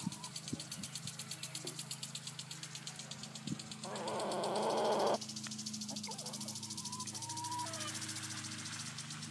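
Backyard hens giving short, soft calls over a steady low hum and a fast, even high ticking. About four seconds in, a louder raspy noise swells for just over a second and cuts off suddenly.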